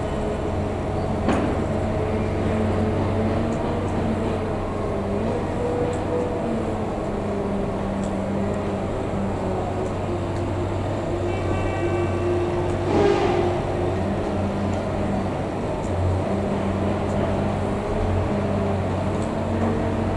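Diesel engine of a rail yard switcher (shunting tractor) idling steadily. There is a short knock about a second in and a brief louder noise about thirteen seconds in.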